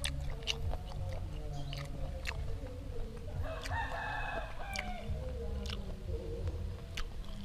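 A man chewing grilled apple snail meat, with scattered wet mouth clicks. Midway through, an animal calls in the background for about a second and a half.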